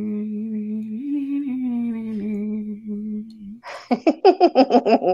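A person humming a long held note that steps up about a second in and slowly slides down, then breaking into a fast, louder run of short sung syllables near the end.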